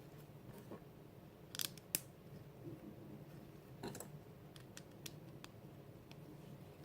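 Plastic Lego pieces clicking as they are handled and pressed together: a few short, sharp clicks, the sharpest about two seconds in, over a faint steady hum.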